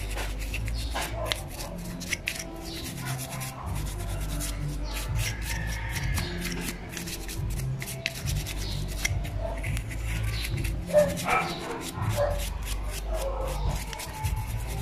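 Toothbrush bristles scrubbing a motorcycle disc-brake caliper dry, a fast run of short rubbing strokes to loosen caked brake dust and dirt.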